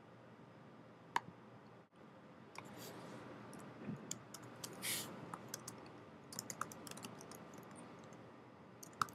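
A single sharp click about a second in, then computer keyboard typing: an irregular run of key clicks from about two and a half seconds in, with a louder keystroke near the end.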